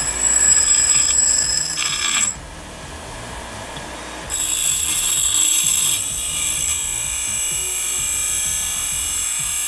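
Bench grinder wheel grinding a small metal bracket: a loud, high-pitched metallic screech over the grinder's running whine. About two seconds in, the piece comes off the wheel and only the quieter spinning grinder is heard for about two seconds, then grinding resumes.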